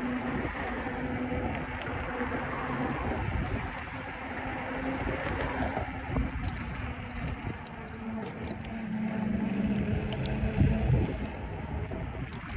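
Rumbling wind on the microphone and rolling noise while riding a bicycle, with a low wavering hum and a few faint ticks.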